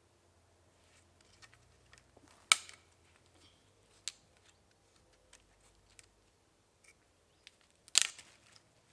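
Dry dead twigs snapping as they are broken off a spruce trunk by hand: a sharp crack about two and a half seconds in, a smaller one a little later and another loud crack near the end, with faint ticks of twigs between.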